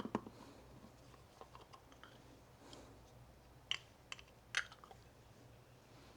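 Light clicks and taps of small mower carburetor parts being handled and fitted together by hand, with two sharper clicks near the middle.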